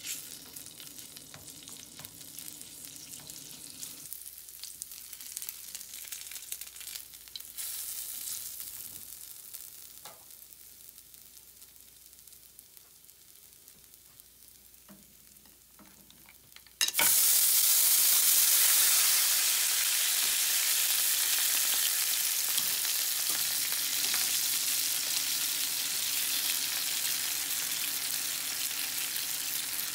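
Garlic and dried chili sizzling gently in olive oil in a frying pan while being stirred with a spatula. About 17 seconds in the sound jumps abruptly much louder: the pan now full of clam broth sizzling and bubbling hard as it is stirred.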